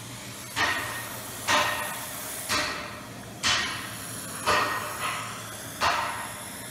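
Hand hammer striking hot metal on a forged steel sculpture, six blows about a second apart, each ringing briefly: the peening of a heated rivet.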